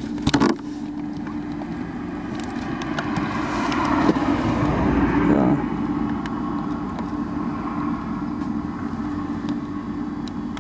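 A road vehicle passing by, swelling to its loudest about four to five seconds in and then falling away, over a steady low hum. There is a brief knock at the very start.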